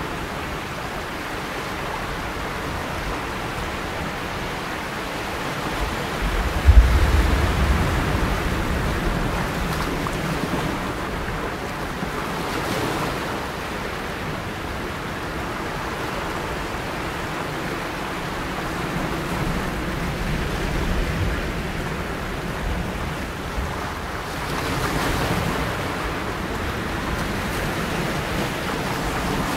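Ocean surf washing, a steady rushing noise that swells and eases, with a deep thump about seven seconds in.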